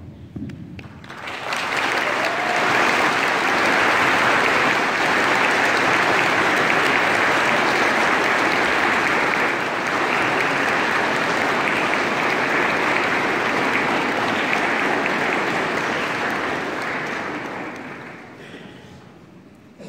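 Audience applauding, starting about a second in, holding steady, and dying away over the last few seconds.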